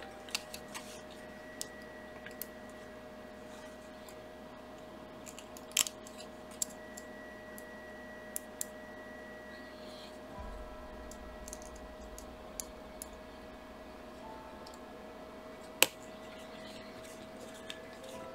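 Small screwdriver driving a tiny screw into a plastic model part: scattered faint clicks and ticks, with a few sharper clicks, over a faint steady hum.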